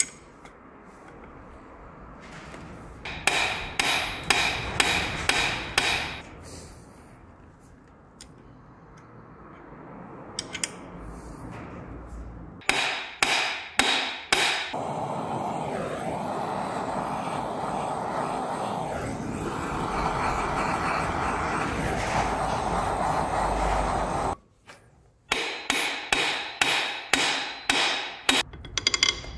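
Runs of sharp metal-on-metal strikes with a ringing tail, about two or three a second, on a gear puller clamped to a stuck timing-belt pulley on an engine's crankshaft, to shock the pulley loose. Three such runs, with a steady rushing noise lasting about nine seconds between the second and third.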